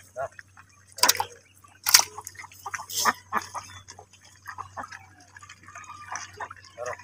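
A hand splashing and groping through shallow paddy-field water for fish, with three sharper splashes about one, two and three seconds in, then softer dripping and dribbling.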